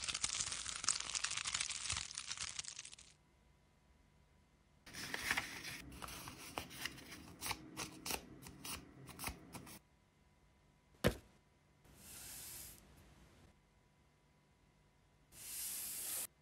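Paper being handled and torn: several separate bursts of rustling and tearing, one of them a string of small crackles, and a single sharp click about two-thirds of the way through.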